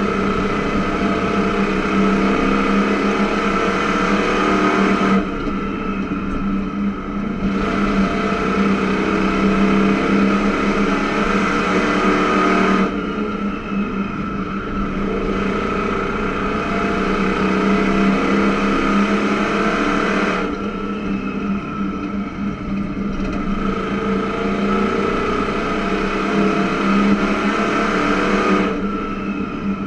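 A dirt-track race car's engine running hard, heard from inside the cockpit with tyre and wind noise. Its note drops back four times, about every seven to eight seconds, as the driver lifts off for the turns, then comes back on throttle down the straights.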